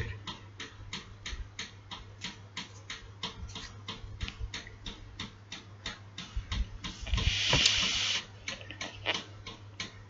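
Steady rapid ticking, about four ticks a second, over a low steady hum, with a short burst of hiss about seven seconds in.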